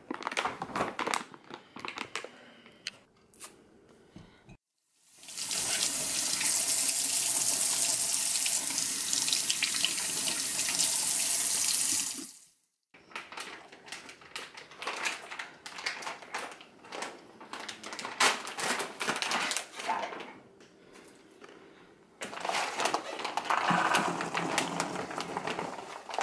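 Kitchen tap running steadily into a stainless steel sink for about seven seconds, between stretches of a plastic produce bag crinkling and being handled. Near the end, cranberries are poured from the bag into a plastic colander.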